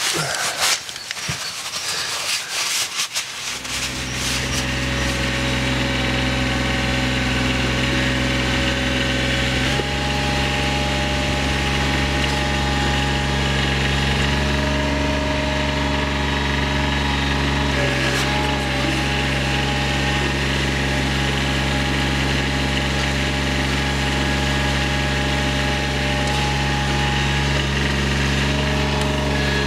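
A few knocks and rattles, then a Toro Greensmaster 3250-D ride-on greens mower's diesel engine running at a steady speed, stepping up slightly in pitch about ten seconds in.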